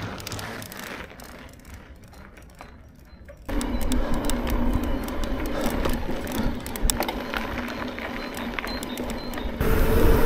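Trek Fuel EXE e-mountain bike ridden over rough ground: a rapid clicking rattle from the bike with tyre noise, the TQ HPR 50 motor itself not heard. The rattle gets suddenly louder about three and a half seconds in.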